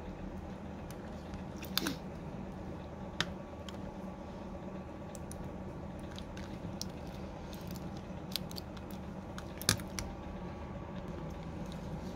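Small clicks and taps of fingers handling an opened smartphone's internals, pressing flex-cable connectors and the NFC coil sheet into place, with a few sharper clicks about two, three and ten seconds in, over a steady background hum.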